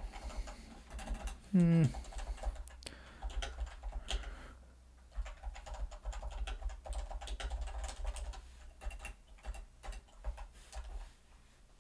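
Typing on a computer keyboard: irregular runs of quick key clicks, with a short pause about four and a half seconds in.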